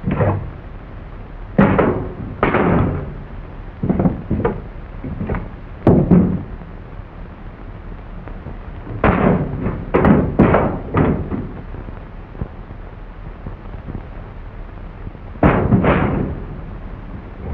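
Pots, pans and crockery being handled and set down on a wooden table and stove, a series of knocks and clatters in irregular clusters over steady hiss.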